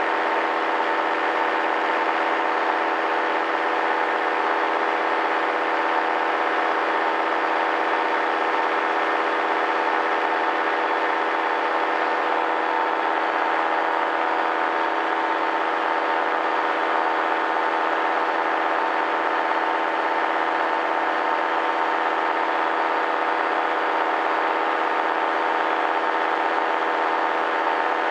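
Paramotor engine and propeller running steadily: an even drone whose pitch and loudness hold constant throughout.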